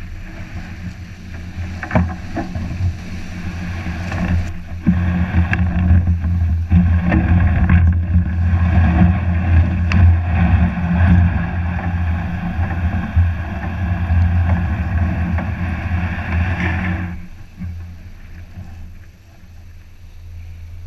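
Strong wind buffeting the microphone, with breaking surf and a few sharp snaps; loud until about 17 seconds in, then dropping away.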